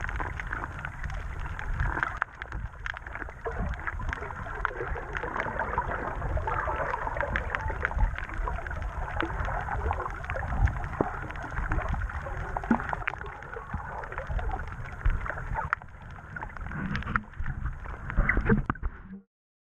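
Muffled underwater water noise picked up by a GoPro Session camera held just below the surface, with a low rumble and many scattered sharp clicks and crackles. It stops suddenly near the end.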